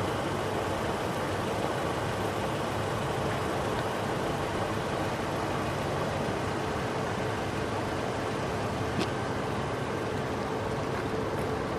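Steady rushing of a creek in flood, swollen with snowmelt and rain, with a single faint click about nine seconds in.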